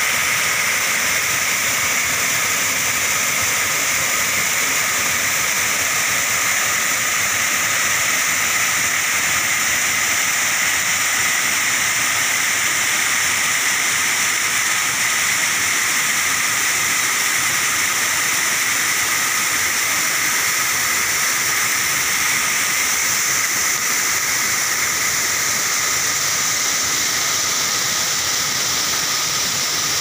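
Waterfall: a large volume of water falling down a rock face, making a steady, unbroken rushing sound.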